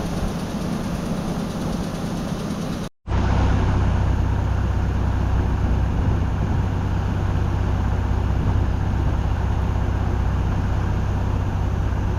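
Engine idling with a steady mechanical rush for about three seconds, then after an abrupt cut a louder heavy engine running steadily with a strong low hum.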